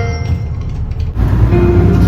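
A Hiroden bus's onboard electronic chime melody ends on its last note over the low rumble of the bus running, heard inside the cabin. About a second in the running noise gets louder and new chime tones begin.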